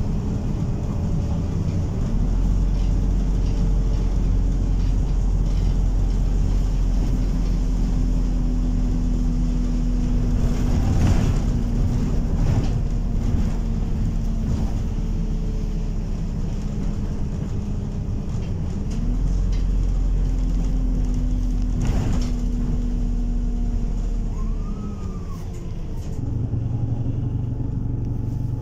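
Optare Solo SR single-deck bus heard from inside the saloon, with the engine and drivetrain droning steadily under way over road noise and a few sharp rattles or knocks from the body. The engine note rises about two-thirds of the way through as the bus picks up speed, then falls and quietens near the end as it slows.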